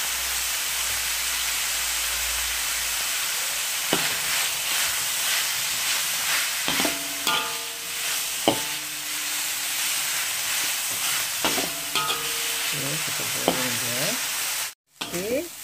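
Minced chicken and chopped shallots sizzling as they fry in oil in a wok, with a metal spatula scraping and knocking against the pan as it is stirred. The sound cuts out briefly near the end.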